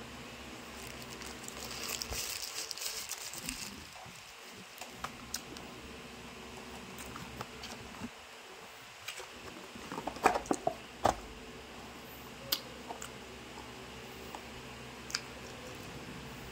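Paper food wrapper and cardboard box being handled while eating: a stretch of rustling about two seconds in, then scattered clicks and knocks, a cluster of them loudest about ten seconds in, over a steady low hum.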